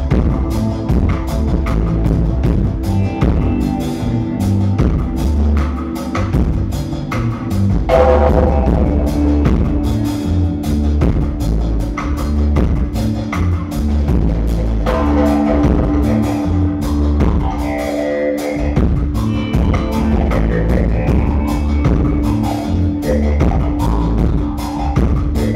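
Live dub reggae band playing: a heavy electric bass line over a drum kit with regular cymbal hits, with electric guitar and keyboards on top. The bass drops out briefly about eighteen seconds in.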